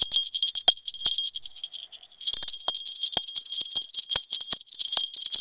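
Small gold jingle bell shaken by hand, ringing with a high, steady tone over a fast rattle of its pellet; it stops briefly about halfway through, then is shaken again.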